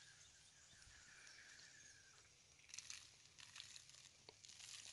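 Near silence, with a few faint rustles and soft clicks in the second half.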